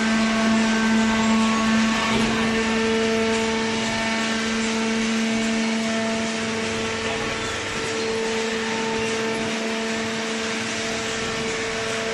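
Hydraulic cardboard baler running: its motor and hydraulic pump make a steady hum with a whine over it. About two seconds in, the low hum gives way to a higher-pitched tone.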